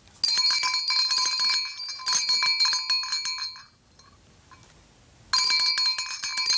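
Small brass servant's bell on a spring bracket jangling rapidly as its bell pull is yanked, ringing for a servant. Two bursts back to back, a pause, then a third burst starting about five seconds in.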